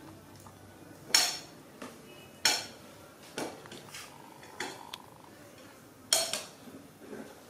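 A spoon clinking against a bowl: about half a dozen sharp clinks a second or so apart, each ringing briefly.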